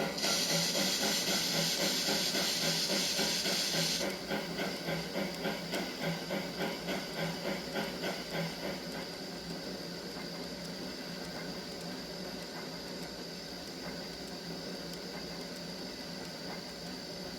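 Recorded steam locomotive sound effects from a model railway sound box: a burst of hissing steam for about four seconds over rhythmic chuffing that fades away, leaving a steady faint hiss.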